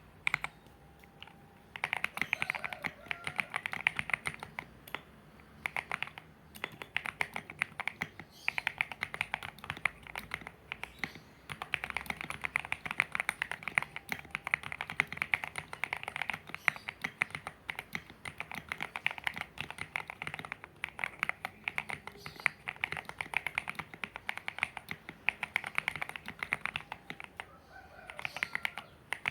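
Fast continuous typing on a modded Zifriend ZA68 mechanical keyboard with SA-profile keycaps, a dense run of key clicks. It starts about two seconds in and breaks off briefly a few times.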